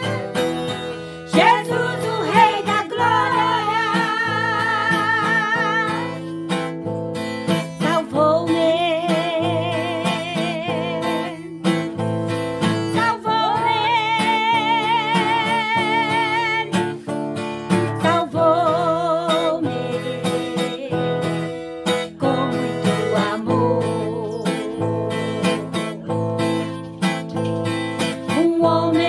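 Two women singing a Portuguese gospel chorus to a strummed acoustic guitar, their held notes wavering with vibrato.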